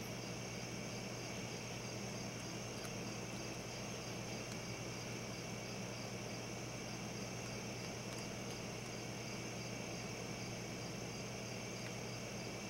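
A steady chorus of night insects calls without a break, in high-pitched bands, over a low steady hum.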